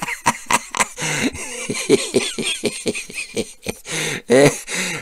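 Plastic-windowed toy box being handled and turned, giving many quick clicks and crackles, with a few brief low voice sounds from the man holding it.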